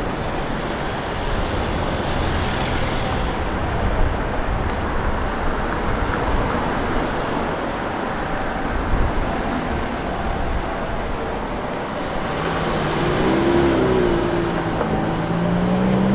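City street traffic: a steady noise of vehicles on a busy road, with an engine rising in pitch near the end.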